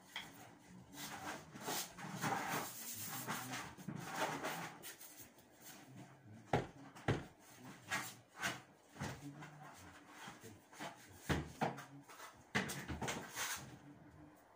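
Irregular sharp knocks and taps, most of them in the second half, with rustling and scraping between them: a hand tool working against building materials overhead.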